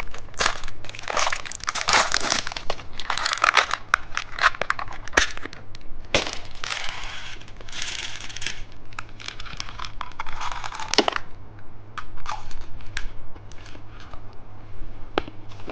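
Plastic candy packaging crinkling and crackling as it is handled and torn open, in dense rustling bursts for the first eleven seconds or so. After that come only scattered small clicks and taps.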